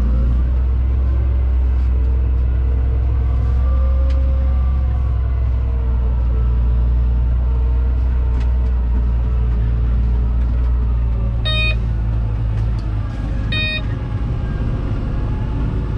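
Fendt 936 tractor's six-cylinder diesel running steadily under a low drone. Near the end come two short electronic beeps about two seconds apart: the squealing alarm that signals the Horsch Pronto seed drill is not sowing at that moment.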